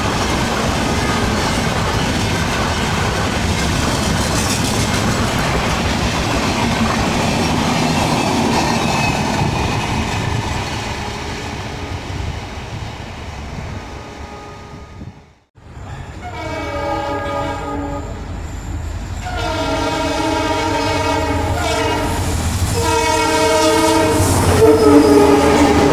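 Passing train coaches rumbling and clattering over the rail joints. After a cut, an Indian Railways diesel locomotive approaches sounding its horn in three long blasts over the engine and wheel noise, the last blast the loudest.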